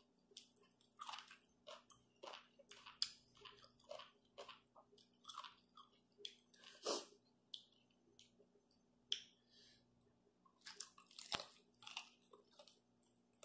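Close wet chewing and lip-smacking of a person eating tum teen gai, a spicy chicken-foot salad with rice noodles, by hand. Irregular short smacks and crunches come throughout, with a louder smack about seven seconds in and another near eleven and a half seconds.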